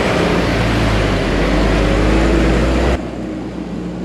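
Toyota Hilux engine labouring up a steep dirt hill climb, its pitch rising slowly. About three seconds in the sound cuts abruptly to a quieter, steady engine drone.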